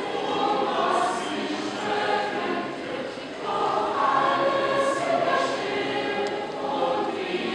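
A choir of many voices singing together in held notes, with a short dip a little over three seconds in before the singing swells again.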